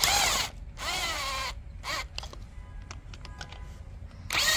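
Cordless electric ratchet running a pump mounting bolt in, in three short bursts, its motor whine rising and then falling each time. The bolt is being snugged rather than fully tightened.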